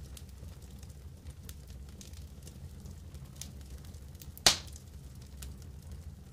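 Faint scattered crackles from the campfire under a wire grill basket of pork pieces, with one sharp metallic click about four and a half seconds in as a metal fork or knife knocks the wire grill.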